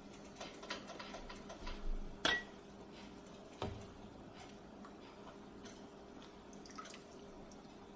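A ladle scooping thick chili from a metal pot: soft scrapes, wet sounds and small clicks, with two sharper knocks of the ladle against the pot, the louder about two seconds in and another a little after three and a half seconds. A faint steady hum lies underneath.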